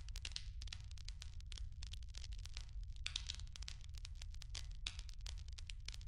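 Small wood fire burning in a clay shichirin brazier, crackling with many sharp pops and short bursts of hiss, over a steady low rumble.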